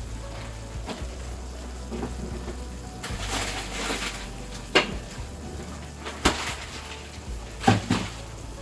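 Pan of purslane cooking with a faint sizzle, and three sharp knocks of a utensil against the pan in the second half.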